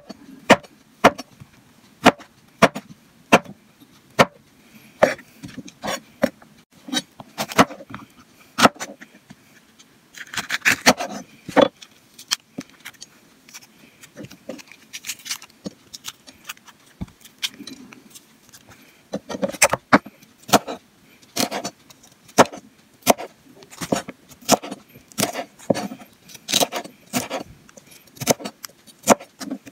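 Chef's knife chopping eggplant and then green bell pepper on a cutting board: sharp knocks of the blade hitting the board at irregular intervals, coming quicker in the later part.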